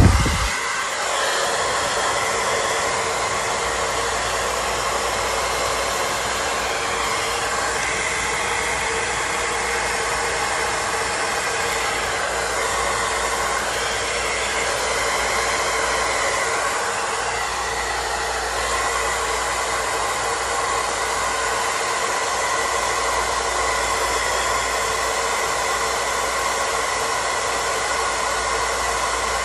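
Handheld hair dryer blowing steadily, starting with a short thump right at the beginning.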